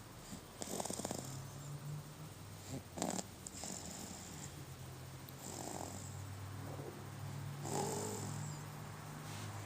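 Snoring: slow, noisy sleeping breaths, a snore every couple of seconds, over a low steady hum.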